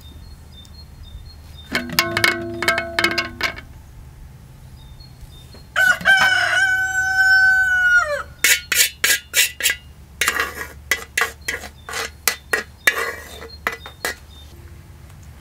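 A rooster crowing once, about six seconds in: one long drawn-out call that drops away at the end. Chickens cluck and cackle before it and in a quick run of calls after it.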